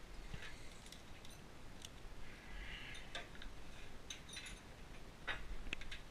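Scattered light clicks and small metallic rattles of battery charger cables and clamps being handled and clipped onto the tractor battery's terminals.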